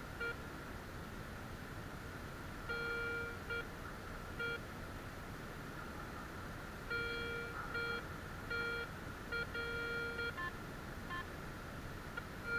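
Garrett metal detector sounding a series of short, low beeps in irregular bursts as the coil sweeps over buried targets, with two brief higher blips near the end. The low tone is the one the detector gives for iron, typical of trash such as bottle caps.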